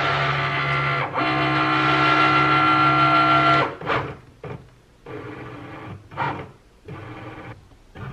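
Cricut Maker cutting machine's motors driving the mat and tool carriage during a print-then-cut calibration, really loud. There is a steady whine for about three and a half seconds, with a short break about a second in. Then comes a string of short whirring moves with pauses between.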